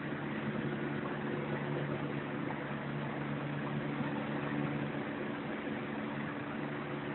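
Helicopter in the air at a distance: a steady hum of several low tones over a broad even noise.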